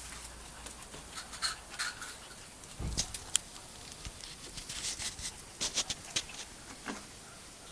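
Small terriers moving about on concrete and straw: scattered light taps and rustles, a little busier around the middle of the stretch.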